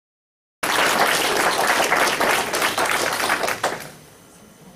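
Audience applauding, cutting in abruptly after a brief dead silence and dying away after about three seconds.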